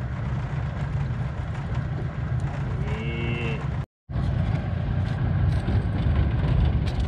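Steady low rumble of a boat's outboard motor running at idle, with a short rising-and-falling call about three seconds in. The sound drops out for an instant about four seconds in.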